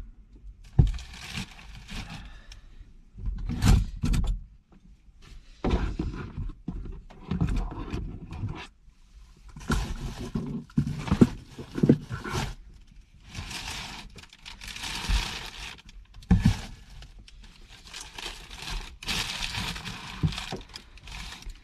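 A person eating hot instant noodles straight from the pot: a string of slurps, each lasting about a second, broken by sharp knocks of the utensils against the pot.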